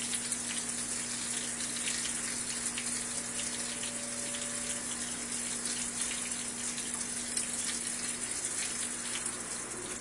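Water spraying and splashing down onto the wet clothes inside a Brastemp Vantage top-load washer as it wets the load, a steady hiss with a low hum from the machine under it; the hum stops about eight seconds in.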